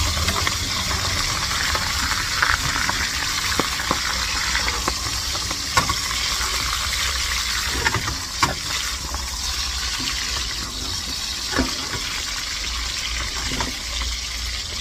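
Marinated split fish (daing na isda) frying in hot oil in a wok: a steady sizzling hiss with scattered sharp pops and spits of oil.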